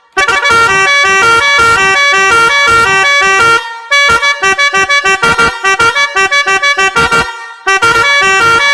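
Multi-tone telolet horn playing a tune of rapid, stepping toots in three runs with brief pauses between them.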